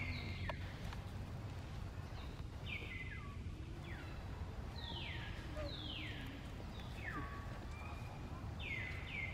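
Short, high-pitched animal calls, each dropping sharply in pitch, repeated roughly once a second over a steady low background hum.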